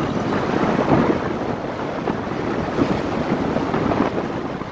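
Wind buffeting the microphone of a camera carried along in a moving vehicle: a loud, steady rushing noise with irregular flutter.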